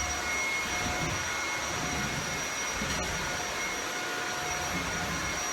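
Shark Powered Lift-Away Rotator Speed upright vacuum cleaner running steadily on a hardwood floor: an even rush of air with a steady motor whine on top.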